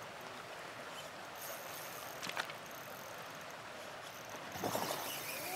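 Steady rush of a shallow river flowing over gravel, with a single sharp click about two seconds in and a brief louder sound near the end.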